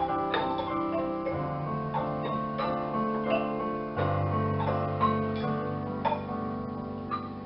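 Instrumental music: struck, quickly fading notes over held low chords that change twice.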